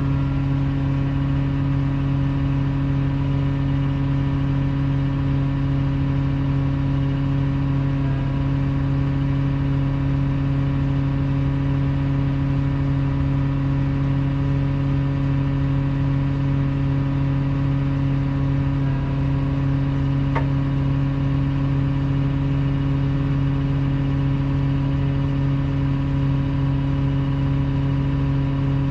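An engine running at a steady idle, one unchanging low hum throughout.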